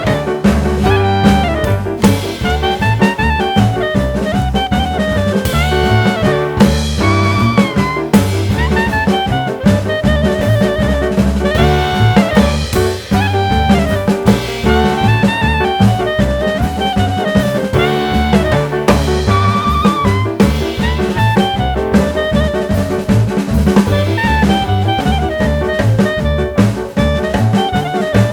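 Jazz music with saxophone or brass melody over bass and drums, with a steady swing beat.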